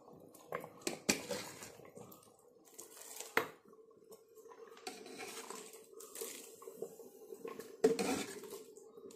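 A steel ladle knocking and scraping against an aluminium pot and a clay pot as hot water is scooped up and poured over rice. There are several sharp knocks, the loudest near the end.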